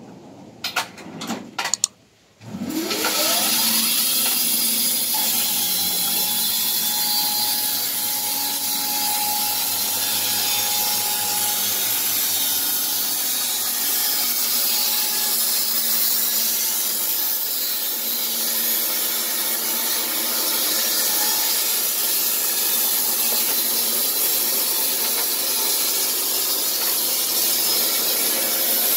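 A few clicks, then about two and a half seconds in the Wood-Mizer LT15 band sawmill's electric motor starts with a rising whine and settles into a steady run. The band blade cuts through a log with a loud, steady hiss.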